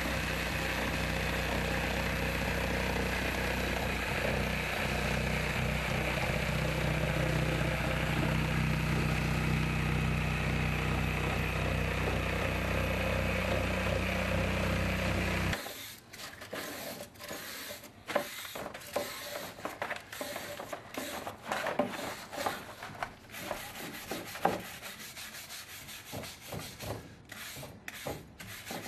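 A handheld corded power tool runs steadily, cutting through drywall, then stops abruptly about halfway through. After that come irregular cracks, scrapes and knocks as the cut drywall is broken and pulled away from the studs.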